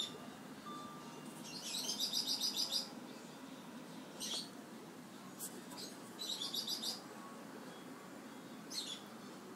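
Pet bird chirping. About two seconds in and again past the middle comes a second-long run of rapid high chirps, about eight a second, with single short chirps between.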